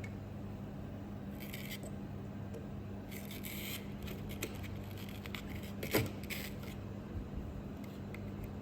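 Short scraping and rustling handling noises over a steady low hum, with one sharp click about six seconds in.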